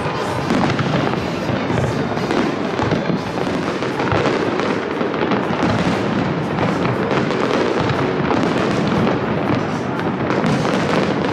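Large fireworks display: a dense, continuous crackling and popping of bursting shells and rooftop fountain fireworks, with music playing underneath.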